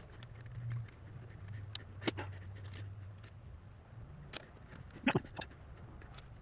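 Small clicks and taps from soldering wires into a metal connector plug held in a vise, the loudest a pair of sharp clicks about five seconds in. A faint low hum runs through the first three seconds.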